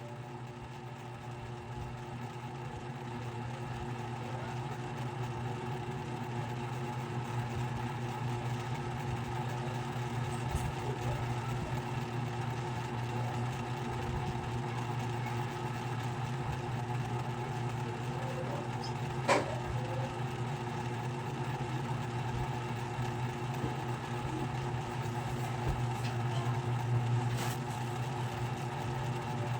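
Ceiling fan running with a steady motor hum and several constant tones, growing a little louder over the first several seconds. A single sharp click comes about 19 seconds in.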